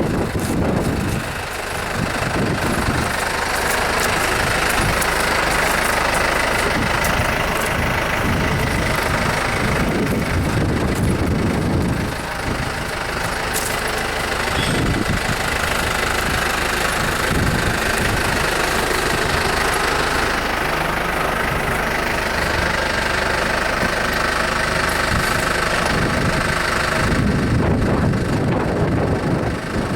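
An engine running steadily, with a faint whine over it.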